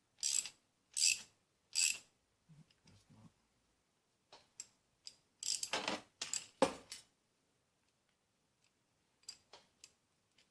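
Eastwood on-car brake line flaring tool being worked to form an inverted flare. Three short mechanical clicks and scrapes come about a second apart at the start, then a louder clatter around the middle and a few faint clicks near the end.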